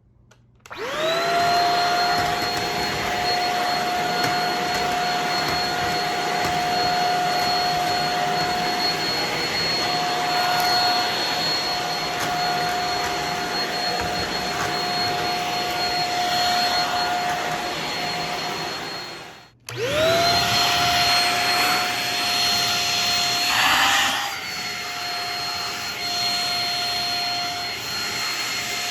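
Shark Rocket corded vacuum cleaner switched on and spinning up about a second in, then running with a steady high motor whine and rushing air. Near two-thirds through it cuts out, restarts and spins up again, with a brief rise in pitch a few seconds later.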